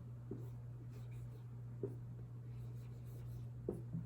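Writing by hand: three short scratching pen strokes over a steady low electrical hum.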